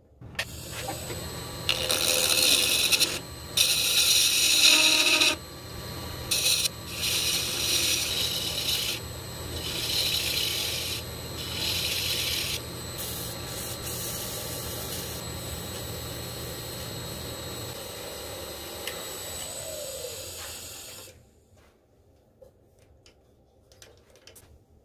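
Wood lathe running with a steady hum while something is pressed against the spinning resin-impregnated maple in repeated rasping, scraping bursts. Near the end the motor winds down with a falling whine and stops.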